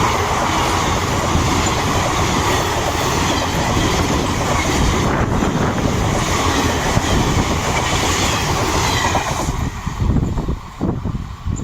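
A train running past close by at speed, a loud steady rush of wheels on rail and coaches clattering over the track. About nine and a half seconds in the noise drops away sharply as the end of the train passes, leaving uneven low rumbles.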